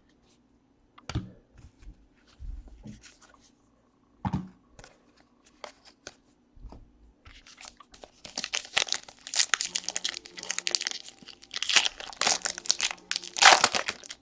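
Light handling sounds of trading cards at first, then from about halfway a trading card pack wrapper being torn open and crinkled, loudest near the end.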